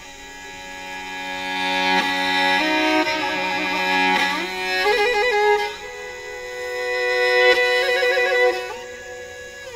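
Instrumental music: a bowed string instrument plays a slow melody of long held notes, with quick trills and slides between them.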